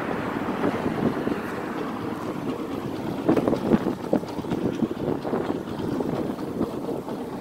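Motorcycle running on the move, its engine mixed with wind buffeting the phone's microphone. There are a few louder knocks about halfway through.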